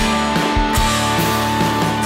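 Background rock music with guitar over a steady drum beat.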